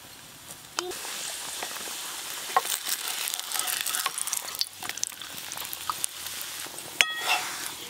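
Lachha paratha sizzling in hot oil in a nonstick frying pan. The sizzle swells about a second in and is broken by taps and scrapes of a wooden spatula on the pan. A short, high, ringing tone comes near the end.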